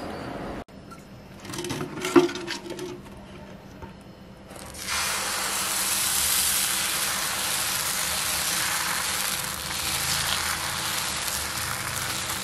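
Uttapam batter sizzling on a hot tawa as it is ladled on and spread. The steady sizzle starts suddenly about five seconds in, after a single sharp knock about two seconds in.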